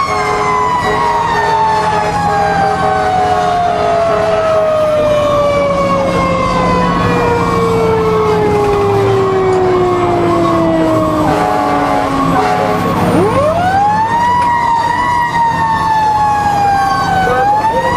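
Fire engine siren heard from inside the cab: a mechanical siren winds slowly down from a high wail to a low growl over about thirteen seconds, is spun back up quickly to a high pitch, then dips and rises once more near the end. The truck's engine drones steadily underneath.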